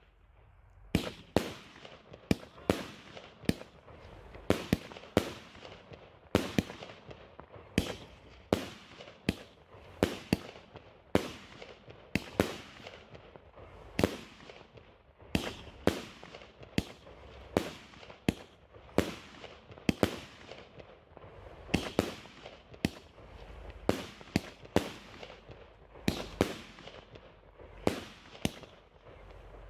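Funke Kamuro Weissblinker consumer firework battery (cake) firing shot after shot, about one or two sharp reports a second, with a low hiss between the shots.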